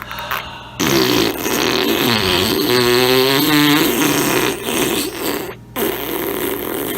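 Whoopee cushion letting out a long, wavering fart noise for about four and a half seconds, starting about a second in, with a weaker one following near the end.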